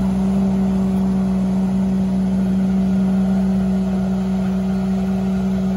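Mini-excavator's diesel engine running steadily at idle, a constant droning hum.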